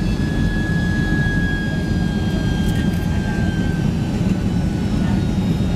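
Cabin noise of a Boeing 767-300ER on approach: a steady low jet-engine and airflow rumble, with a thin high whine that slides slowly down in pitch and fades about four seconds in.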